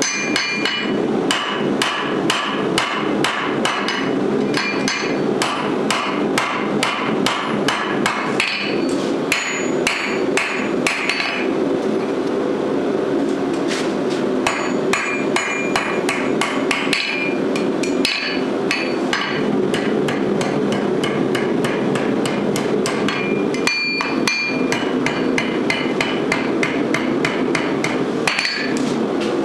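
Blacksmith's hammer striking red-hot steel on an anvil in a fast run of blows, about three to four a second, many of them followed by a short bright ring from the anvil. The steel is the bottle opener's ring, shaped on the anvil face and over the horn. There are brief pauses twice between runs.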